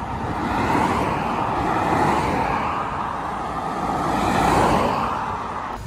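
Road traffic going by: a steady rush of tyre and engine noise that swells about two seconds in and again near the end.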